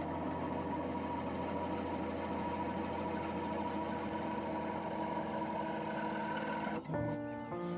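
Wood lathe running with the 2 mm cutter wheel of a Robert Sorby spiralling tool held against the spinning wood: a steady machine sound with a constant hum. About seven seconds in it cuts off abruptly and music takes over.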